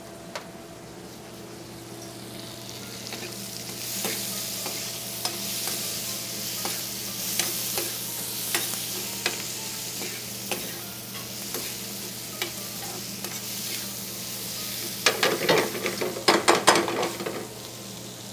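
Chorizo, onion and garlic sizzling in a hot oiled frying pan while a long metal spoon stirs, clicking and scraping against the pan. The sizzle grows louder a few seconds in, and near the end a quick flurry of louder spoon knocks and scrapes is the loudest part. A steady low hum sits underneath.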